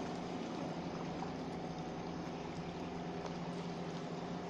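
Steady wash and slosh of seawater against shoreline rocks, with a low steady hum underneath.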